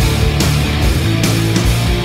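Loud heavy rock music with a steady beat, about two beats a second.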